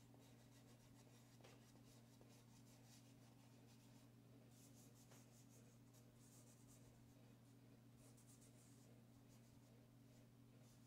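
Faint swishing of fingertips rubbing and blending chalk pastel on paper, in short spells of quick back-and-forth strokes, over a steady low hum.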